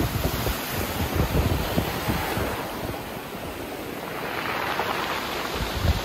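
Sea surf washing over rocks, the foaming water hissing and churning. It eases off in the middle and builds again near the end as more water surges in.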